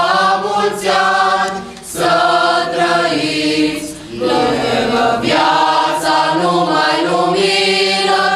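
Mixed youth choir singing a Romanian colind (Christmas carol) a cappella, with short pauses between phrases about two and four seconds in.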